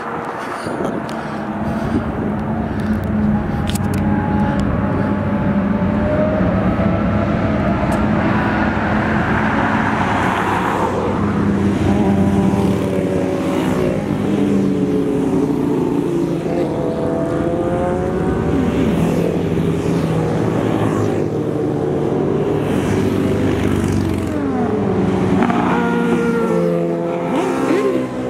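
A long stream of sport motorcycles riding past one after another, many engines running and revving together, their pitch rising and falling as each bike goes by. The sound swells about two seconds in as the first bikes arrive and stays loud after that.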